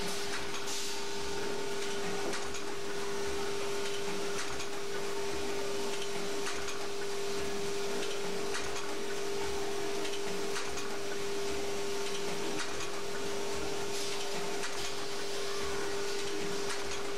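Automated catheter funnel assembly machine running: a steady hum with one constant mid-pitched tone, and short clicks and hisses from its pneumatic actuators about every two seconds as it cycles.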